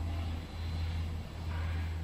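A coloured pencil scratching as it shades paper, over a steady low hum that is the loudest sound throughout.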